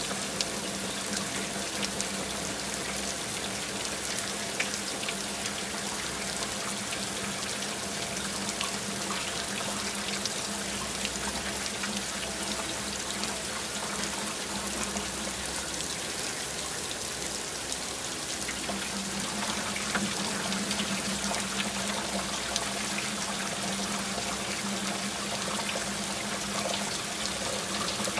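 Heavy rain falling steadily, a dense, even patter of many small drops.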